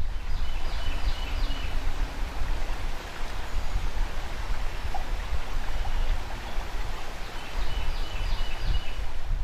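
Steady rush of flowing river water with a heavy low rumble beneath it. A short high chirping phrase comes twice, near the start and near the end.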